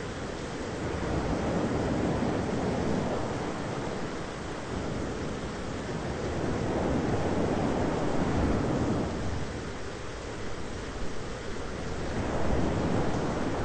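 Thunderstorm ambience: a dense, low rushing rumble that slowly swells and eases every few seconds, with no distinct cracks.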